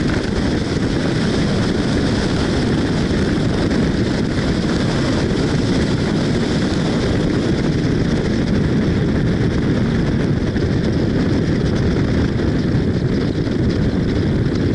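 The Che-29 seaplane's twin Rotax 912 piston engines and propellers running steadily.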